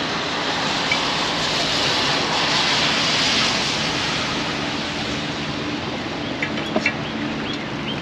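A vehicle passing on a nearby road: a rush of tyre and engine noise that swells for about three seconds and then slowly fades, with a few faint high chirps near the end.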